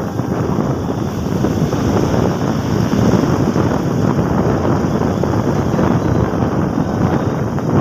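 Wind buffeting the microphone of a phone held up on a moving motorcycle, a steady loud rushing noise with the bike's road and engine noise mixed under it.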